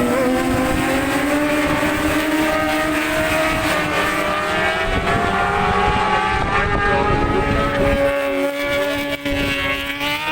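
Racing motorcycles at full throttle going round the circuit, several engine notes at once, rising slowly as the bikes accelerate. Wind rumbles on the microphone.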